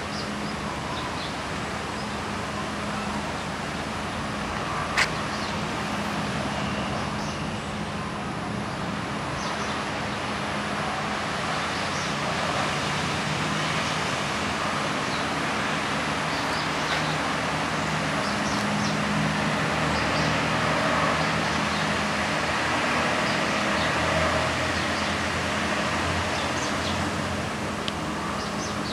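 Steady outdoor background noise like distant traffic, with faint high chirps now and then and one sharp click about five seconds in.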